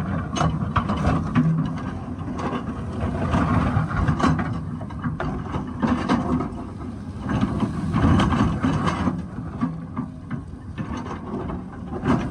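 Excavator engine running under load, with frequent knocks, scrapes and clatter as the bucket works rock and stones.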